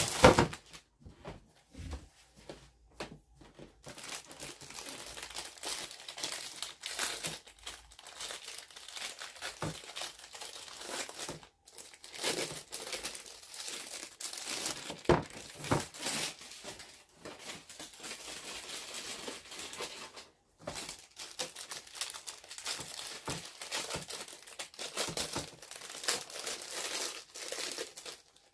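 A plastic wrapper crinkling and tearing in irregular bursts as a roll of refrigerated pie dough is unwrapped over an aluminum sheet pan. There is a sharp knock right at the start, as the dough roll comes out of its box onto the pan.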